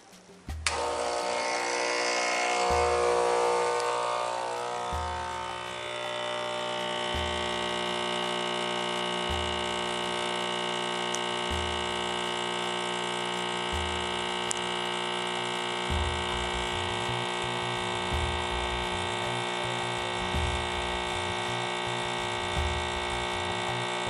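Pasquini Livietta T2 espresso machine's pump buzzing steadily while it pulls an espresso shot. It starts suddenly about a second in, when the brew switch is pressed, and shuts off just at the end, after about 24 seconds of pumping.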